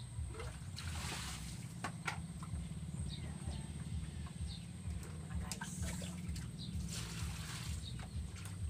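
Water splashing and sloshing in short bursts as fish are cleaned and rinsed by hand in a basin, with a few sharp clicks and taps from the work. A steady low hum runs underneath.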